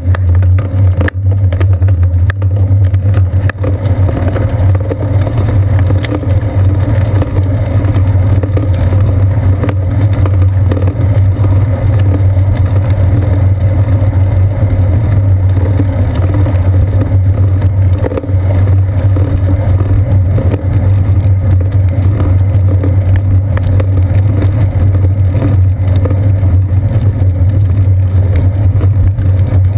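Steady, loud low rumble of riding noise picked up by a seat-post-mounted GoPro Hero 2 in its sealed housing as the bicycle rolls along wet pavement, with a few sharp knocks in the first few seconds.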